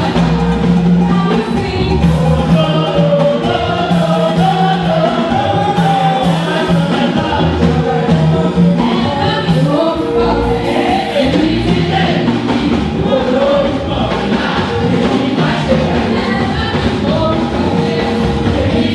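A choir singing a gospel song over instrumental accompaniment, with sustained low notes under the voices.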